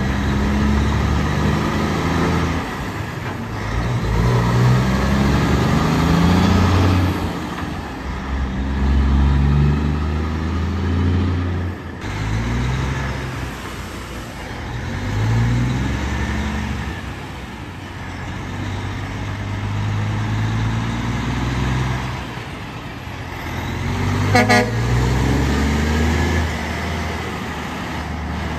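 Heavy trucks going by, their diesel engines pulling and rising in pitch in repeated steps as they go up through the gears. A short, sharp, loud blast comes about 24 seconds in.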